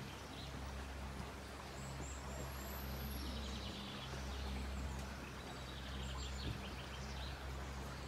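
Steady outdoor background noise with a low rumble, and small birds chirping in short runs about three seconds in and again around five to six seconds in.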